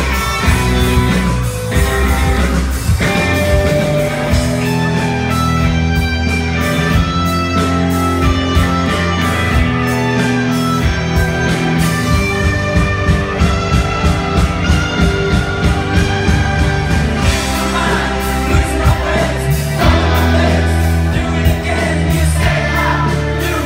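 Live rock band playing: a singer over electric guitar, bass and drums with a steady beat, heard loud from the middle of the audience in a large concert venue.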